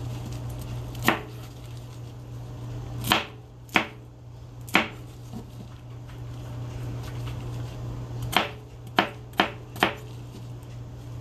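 Chef's knife chopping bell peppers on a plastic cutting board: about eight sharp knocks of the blade hitting the board at uneven intervals, with a quick run of four near the end.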